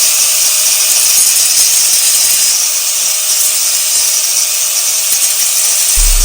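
Loud, steady, harsh hiss of metalworking on a motorcycle's cracked exhaust flange, from welding or grinding. It starts abruptly and holds without a break.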